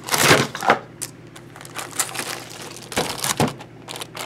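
Keyboard packaging being handled and pulled apart: crinkling and rustling, loudest in the first second and again about three seconds in, with a few light clicks and taps between.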